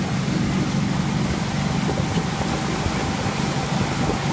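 Wakesurf boat's engine running steadily under way, with the constant rush of the churning wake and spray behind the boat.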